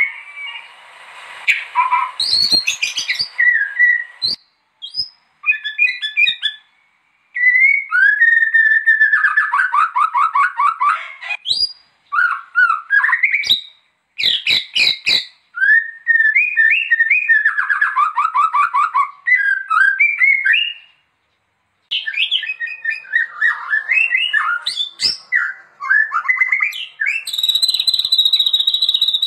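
White-rumped shama (murai batu) singing a varied song of rich whistles, sweeping phrases and rapid trills, delivered in bursts with short pauses between them and a few sharp clicks mixed in. Near the end a steady high buzzing trill sets in.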